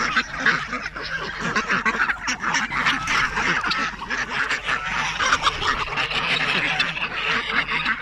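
A mixed flock of domestic ducks and other farmyard poultry calling all at once at close range: many overlapping quacks and short calls in a continuous chatter.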